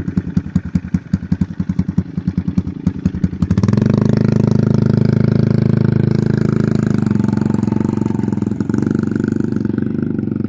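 Motorcycle engine chugging at low revs with distinct exhaust beats, about eight or nine a second. About three and a half seconds in it revs up and runs steadily under throttle.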